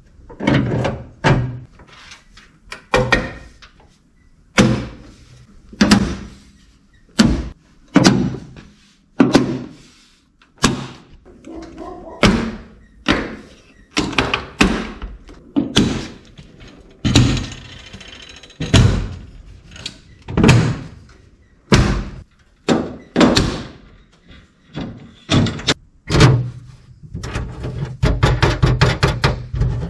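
A series of loud, sharp thuds and knocks, roughly one a second but unevenly spaced, each dying away quickly, with a quicker flurry of them near the end.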